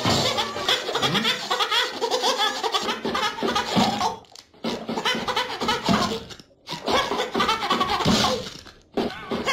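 SpongeBob SquarePants's cartoon voice, Italian dub, laughing hard in fits, broken by three short pauses.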